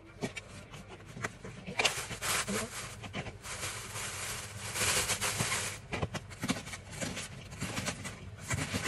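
Thin plastic bag rustling and crinkling in bursts as a cabbage is handled in it, then a knife cutting into the cabbage with a few short sharp strokes near the end.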